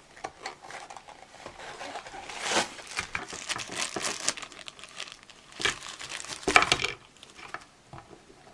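Blind-bag toy packaging crinkling and tearing as it is handled and torn open by hand, in irregular bursts with the loudest rustling about two thirds of the way through.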